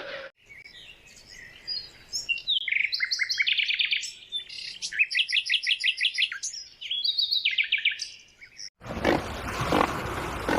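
A songbird singing fast trilled phrases of rapidly repeated high notes, with short pauses between phrases. Near the end it cuts abruptly to a loud rushing noise.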